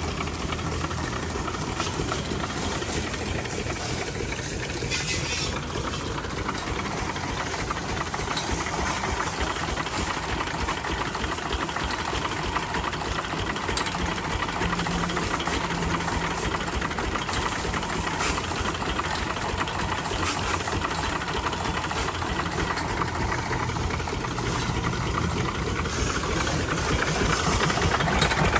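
A 12 hp single-cylinder stationary diesel engine running steadily with a regular knocking beat as it belt-drives a piston pressure-washer pump. It grows a little louder near the end.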